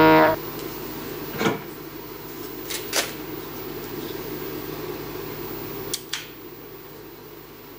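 Steady low hum of the CNC milling machine setup, with a few sharp clicks and knocks as its handheld jog pendant is picked up and its buttons are handled. A music cue cuts off right at the start.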